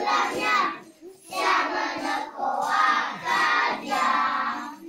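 A group of young children singing a song together, with short breaks between phrases about a second in and again about halfway through.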